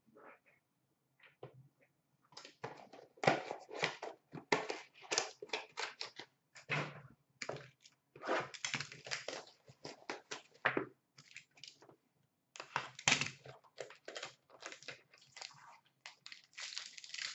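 Packaging on a trading card box being torn open and handled: plastic wrap and cardboard crinkling and crackling in dense, irregular bursts, starting about two seconds in.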